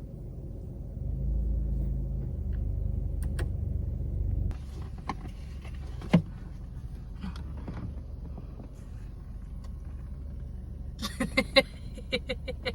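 Car running on the road, heard from inside the cabin as a steady low rumble that swells for a few seconds early on, with occasional clicks and a cluster of short knocks near the end.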